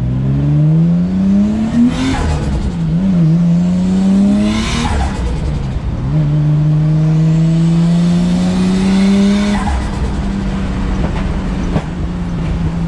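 Turbocharged RB25 straight-six in a Nissan S14 accelerating hard through the gears. The revs climb and drop at gear changes about 2, 5 and 10 seconds in, each change bringing a rush of turbo flutter and screamer-pipe wastegate noise. The engine settles to a steadier note after the last change.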